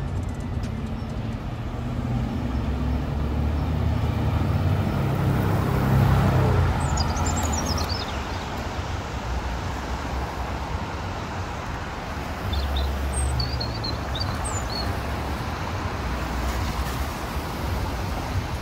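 City street traffic on wet pavement: car and bus engines running with tyre hiss, one vehicle passing loudest about six seconds in and another swelling a little after twelve seconds. A few short high chirps are heard near the middle.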